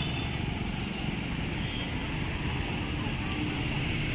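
City street ambience: a steady rumble of passing traffic with a background murmur of voices.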